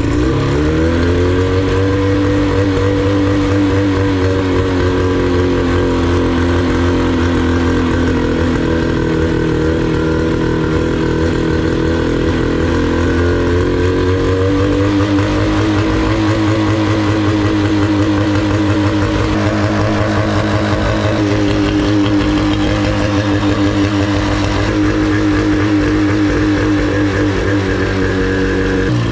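Mercury 25 hp outboard motor running just after starting, catching and settling into a steady idle; its engine speed shifts a little about halfway through. The motor runs smoothly.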